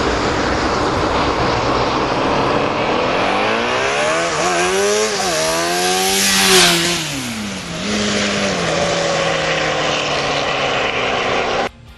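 Honda CBR600 inline-four motorcycle engine in a quad bike, accelerating hard: its pitch climbs, dips and climbs again as it revs and shifts, is loudest a little past the middle, then falls away and settles, under a heavy rush of wind and tyre noise.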